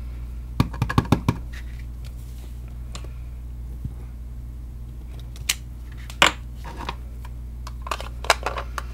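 Sharp clicks and taps of a clear acrylic stamp block and ink pad being handled and pressed onto cardstock on a cutting mat: a quick cluster about a second in, two single clicks later, and a few small ones near the end, over a steady low hum.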